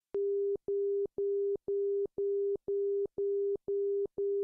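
ILS outer marker beacon audio: a low steady tone keyed in repeated dashes, about two a second, signalling that the aircraft is passing over the outer marker on the approach.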